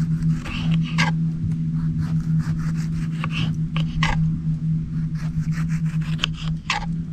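Knife slicing a yellow sweet pepper into rings on a plastic cutting board: irregular sharp cuts and scrapes, with stronger ones about a second in, around four seconds and near six seconds. Under it runs a steady low hum.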